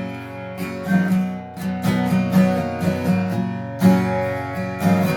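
Acoustic guitar strummed in a steady rhythm, about two strokes a second: the instrumental opening of a song, with no singing yet.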